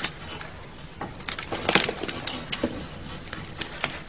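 Irregular sharp clicks and knocks, two or three a second, over a low background.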